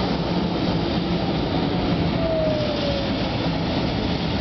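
Tram running along street rails toward the listener with a steady rumble and hum, and a whine that falls in pitch about two seconds in.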